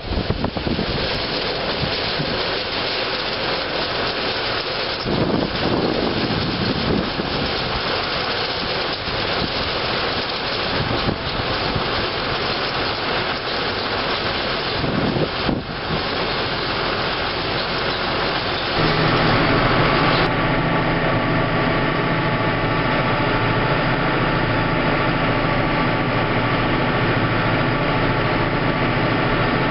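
Wind buffets the microphone over the Massey Ferguson 6475 Dyna6 tractor working a field. About two-thirds of the way through, the wind drops away and the tractor's diesel engine comes through as a steady, even drone under load.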